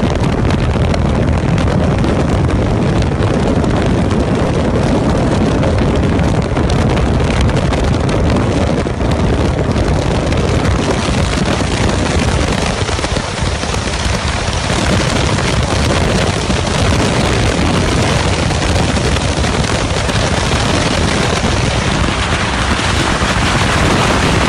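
Aircraft engine running steadily, heard from inside the cabin with wind buffeting the microphone.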